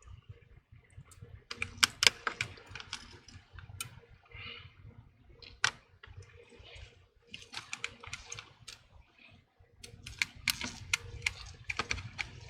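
Small sharp clicks with light tapping and scraping as fingers and tools work inside an iPhone 12: flex cable connectors being pressed and snapped back onto their board sockets. The clicks come in irregular clusters, the loudest about two seconds in and again near the end.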